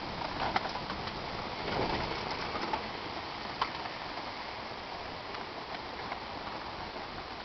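Electric Club Car golf cart rolling over grass and a dirt track: a steady hiss of tyre noise with scattered small crackles and clicks, and a brief swell about two seconds in.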